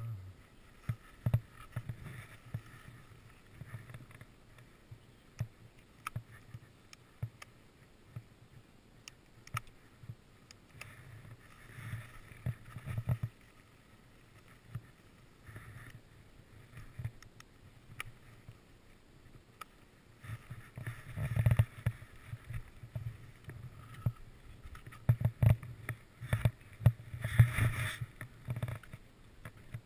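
Skis scraping and sliding through soft, tracked snow on a descent, with irregular knocks and clicks. The scraping comes in rough surges, loudest around the middle and in the last third.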